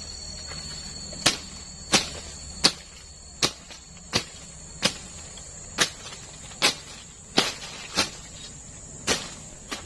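Steady high insect buzz in the forest, with a dozen sharp knocks struck about once every three-quarters of a second.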